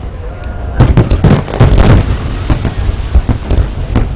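Fireworks going off: a rapid cluster of sharp bangs about a second in, followed by scattered single bursts.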